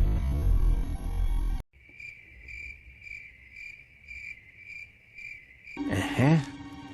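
Music cuts off abruptly about a second and a half in, leaving crickets chirping steadily about twice a second: the 'awkward silence' crickets gag. Near the end a brief sound with falling pitch interrupts the chirping.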